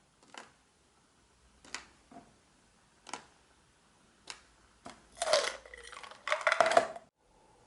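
Supplement pills and capsules being handled and dropped into a plastic pill organizer: a few light clicks about once a second, then two louder rattling clatters about five and six and a half seconds in.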